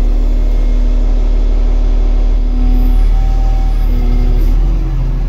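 SOCMA HNF-300 30-tonne forklift's engine running steadily under a load of about 16.5 tonnes, heard from inside its cab. A steady low drone with a whine on top that shifts pitch about halfway through.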